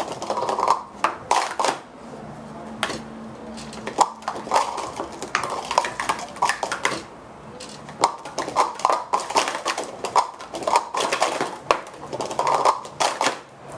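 Plastic sport-stacking cups clattering rapidly against each other and the mat as they are stacked up and brought down, in quick runs of clicks broken by short pauses.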